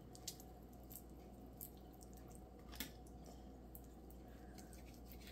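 Near silence with a few faint soft clicks and wet squishes as a knife works through the skin and joint of a raw chicken wing.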